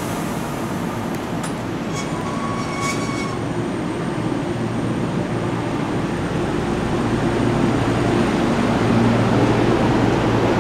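JR West 113-series electric multiple unit pulling away from a station platform, its DC traction motors and running gear humming louder as the train gathers speed.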